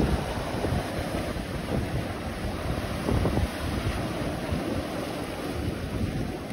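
Sea surf washing and breaking over shore rocks, mixed with wind buffeting the microphone; the water surges louder about three seconds in.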